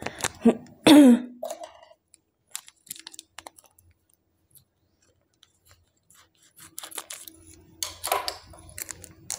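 A plastic noodle sauce sachet is handled and crinkled as she tries to tear it open, with a short vocal sound about a second in. A few faint snips follow as scissors cut the sachet, then clicks and rustles near the end as the scissors and sachet are handled and put down.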